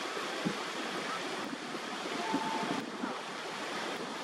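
Steady rushing outdoor noise, like wind on the microphone, with a few faint short squeaks and a brief high tone a little past two seconds in.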